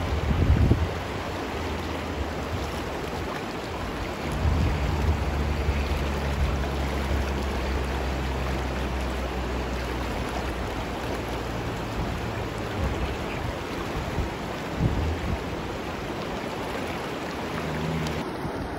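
Shallow river water rushing steadily over a rocky riffle, with a low rumble underneath for several seconds.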